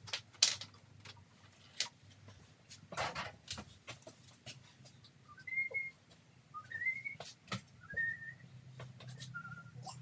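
Sharp clicks and knocks, the loudest about half a second in, then four short, high, whistle-like notes about a second apart, each rising and then levelling off.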